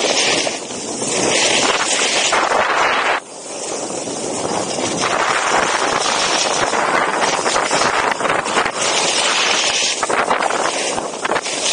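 Loud wind rushing over the microphone of an action camera carried by a downhill skier, mixed with the sound of skis sliding on snow. The noise drops briefly about three seconds in, then builds again.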